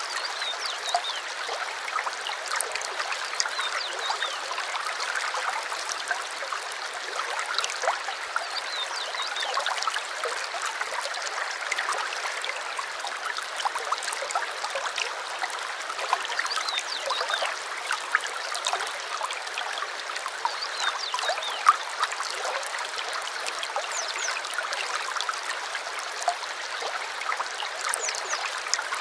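A small stream trickling and gurgling steadily, with many small splashes and no deep rumble.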